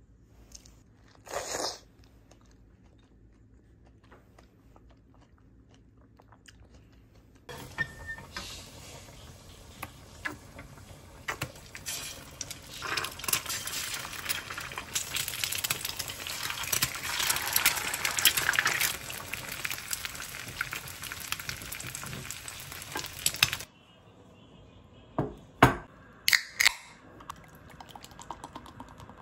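Eggs frying in a hot oiled pan: a steady sizzle with small crackles that builds for several seconds and then cuts off suddenly. Near the end, a few sharp snaps and a pour as a beer can is opened and poured into a glass.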